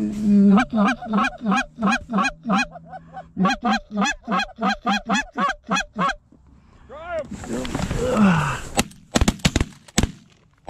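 Canada goose honks and clucks in a fast, even run of about four a second, then a brief rush of rustling noise, then a quick volley of shotgun blasts from several guns near the end.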